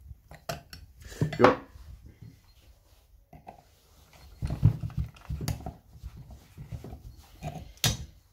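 Metal chainsaw parts and hand tools clinking and knocking against each other and the bench as they are handled, in a few separate clatters.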